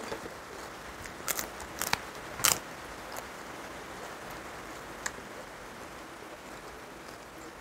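Crisp fried papad cracking: a few sharp cracks in the first three seconds, the loudest about two and a half seconds in, then a faint one around five seconds, over a steady hiss.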